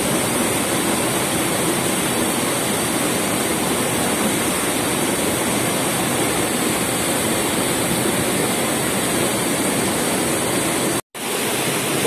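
Waterfall pouring over boulders into a rocky pool: a loud, steady rush of water, broken by a very short dropout about a second before the end.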